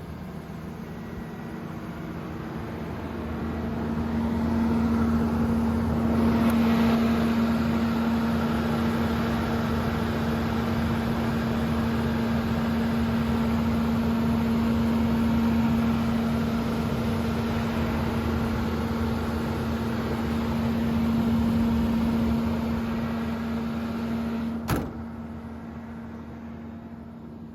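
Komatsu PC210LC-7 excavator's diesel engine running with a steady hum, rising in level a few seconds in and holding there as the machine works. A single sharp knock comes near the end, after which the level drops back.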